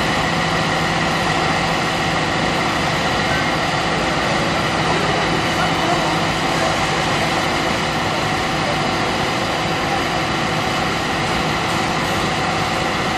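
A heavy engine running steadily at idle, a constant drone with a fixed hum and no revving.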